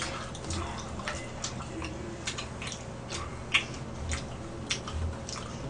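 Close-up mouth noises of people eating: chewing with short wet smacks and clicks, irregular, about two a second, and a few soft thumps.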